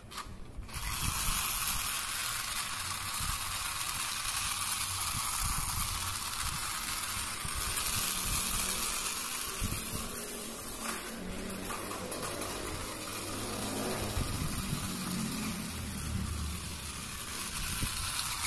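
Battery-operated wheeled plastic bug toy running, its small motor and plastic gears giving a steady whirring rattle that switches on just under a second in.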